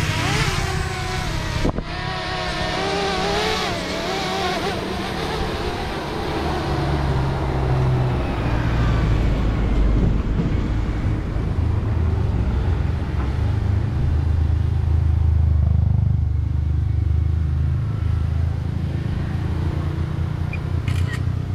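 A small quadcopter drone's propellers whine as it lifts off from a hand. The wavering whine is loud at first and fades over the first several seconds as the drone climbs away. A steady low rumble runs underneath.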